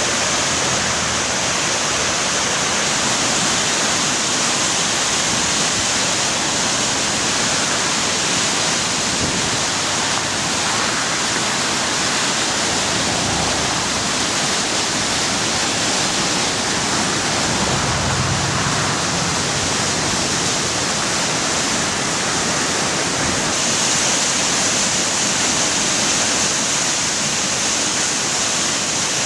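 Floodwater rushing through rapids in a normally dry desert river running high after heavy rain, a steady, unbroken rush of water.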